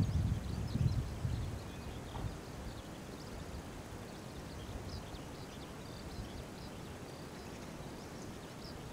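Open-air ambience: a low rumble of wind on the microphone that dies away over the first couple of seconds, then a quiet steady background with scattered faint high chirps.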